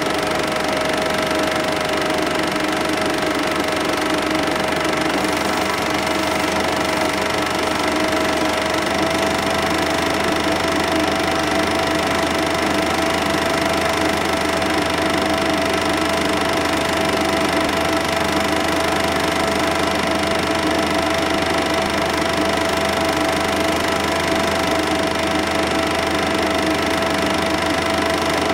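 Cine film projector running: the steady whir and clatter of its motor and film transport, with a held hum whose pitch steps up slightly about nine seconds in.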